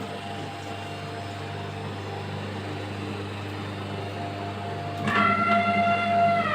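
Electric kids' elephant ride humming steadily. About five seconds in, a louder high, meow-like wail starts, holds, and slides down in pitch at the end.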